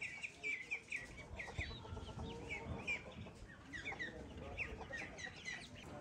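Birds chirping: many short, high calls, several a second, busiest in the first second and a half and again from about four to five and a half seconds in.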